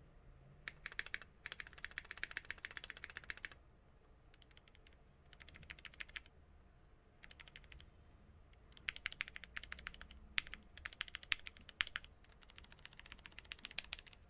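Typing on an Abkoncore AR87 mechanical keyboard with lubed Cherry MX Red linear switches, genuine Cherry stabilizers and EPBT doubleshot PBT keycaps on a CNC aluminium case. The keystrokes come in fast runs of clicks, about eight bursts broken by short pauses.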